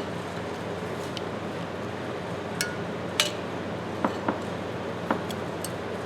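Scattered light metallic clicks and clinks, about seven spread over a few seconds, as a steel screwdriver tip picks and pries at the spring inside a Ridgid pipe wrench's head, over a steady low hum.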